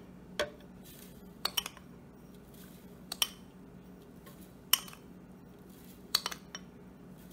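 Light, scattered clinks and taps of kitchen utensils against a plastic mixer-grinder jar as sugar is spooned in over mango slices, some of the taps coming in quick pairs, over a faint steady hum.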